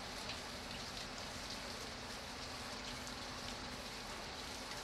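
Steady rain falling: an even hiss with individual drops pattering through it.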